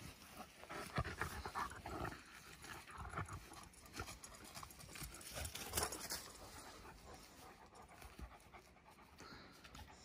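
Turkish shepherd dog panting, with scattered sharp knocks.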